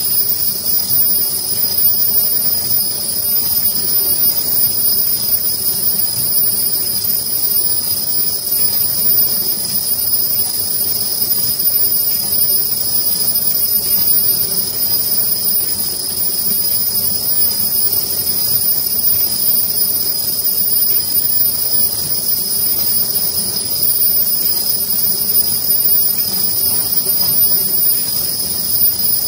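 Ultrasonic welding machine for non-woven fabric running steadily: a constant high-pitched whine over a low machine hum as the fabric feeds through the welding heads.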